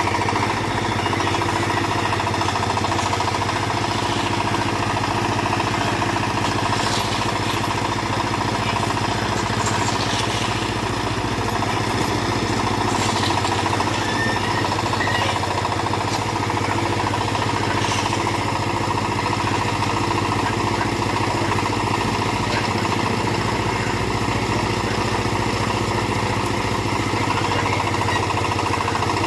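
Small diesel engine of a mini backhoe running steadily at a constant speed as it works, with a few faint clicks and clatters along the way.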